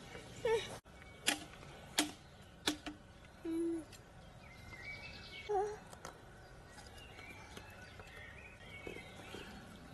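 Three sharp knocks, roughly two-thirds of a second apart, from work on a piece of hazel wood. After them come faint bird chirps over quiet outdoor background.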